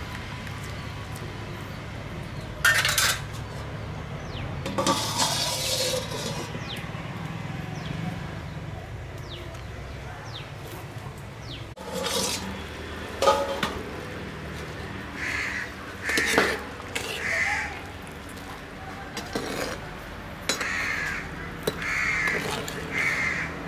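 A metal ladle knocking and scraping in a clay pot of simmering curry, a few sharp clanks over a steady low background. In the second half, crows caw repeatedly in short calls.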